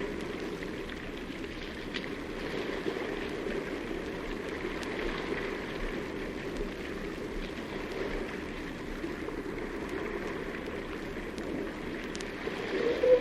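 Steady wash of water and surf noise with a few faint scattered clicks and drips, and no seal calls.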